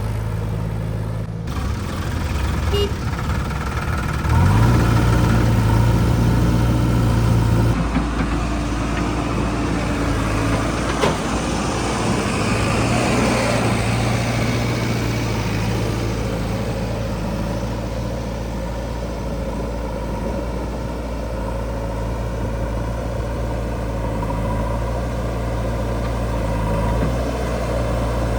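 Heavy diesel engine of a JCB 3DX backhoe loader running under load while it works. It revs up about four seconds in and drops back to a steady run after about eight seconds.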